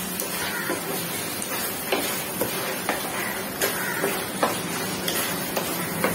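A spatula stirring chicken pieces through thick masala in a steel pan, with scattered clicks and scrapes of the spatula against the pan over a steady sizzling hiss.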